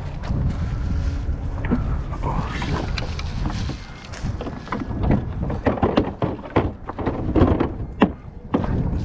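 Wind buffeting the microphone in a steady low rumble, with a quick series of knocks and clatters in the second half.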